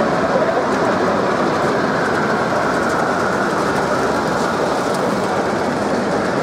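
Steady running noise of a model diesel train passing close by on the layout, over the constant background chatter of a busy exhibition hall.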